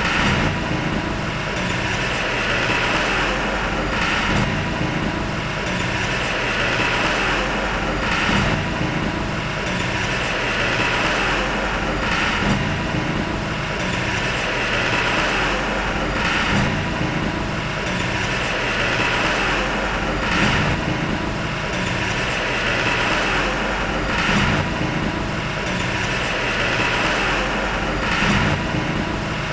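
Heavy earthmoving machinery's diesel engine running steadily, with a brief surge about every four seconds.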